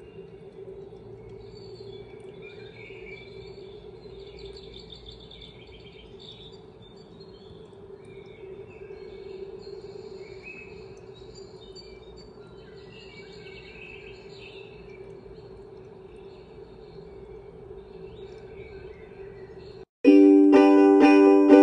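Young Living owl-shaped diffuser playing its built-in birdsong sound: scattered bird chirps over a steady hum. About twenty seconds in, loud ukulele music cuts in suddenly.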